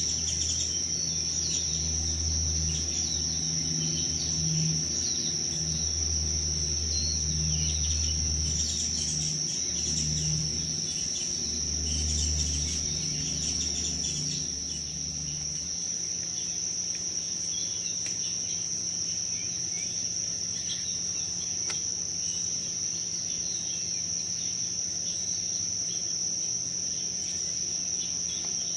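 Insects chirring in one steady, unbroken high-pitched drone, with faint scattered chirps over it. A low rumble sits underneath and stops about halfway through.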